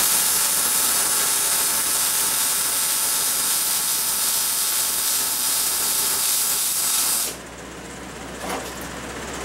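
Electric arc welding on steel: a steady hissing arc while a weld bead fills a gap in the joint, cutting off abruptly about seven seconds in when the arc is broken.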